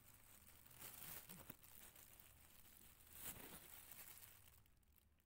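Near silence with faint rustling, louder about a second in and again past three seconds in.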